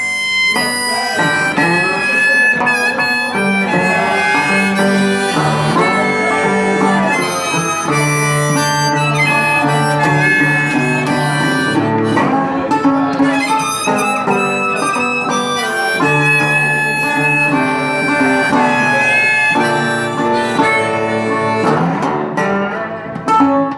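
Instrumental break in a slow blues song: a lead line of held notes that bend in pitch, played over chordal accompaniment, with no singing.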